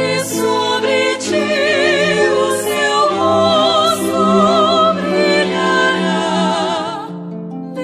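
A song: singing with vibrato on long held notes over sustained accompaniment.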